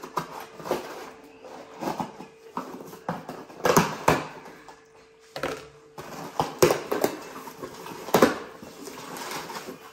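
A cardboard shipping box being opened by hand: a knife slitting the packing tape and the flaps being pulled and torn open, in a string of irregular short scrapes and rips. A faint steady hum runs underneath.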